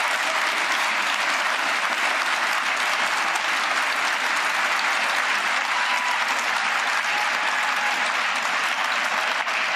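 Large crowd applauding steadily in a big chamber, a long, sustained ovation with no speech over it.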